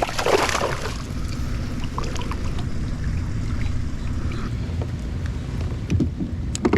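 Water splashing and light knocks as a small bass is landed in a kayak, over a steady low rumble of wind on the microphone.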